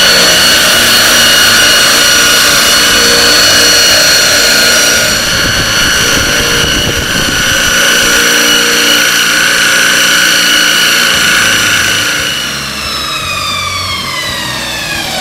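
Multitool belt sander running a 1200-grit 3M Trizact belt, a steady high motor whine over the rasp of the belt polishing a steel railway spike. About twelve seconds in it is switched off, and the whine falls smoothly as it winds down.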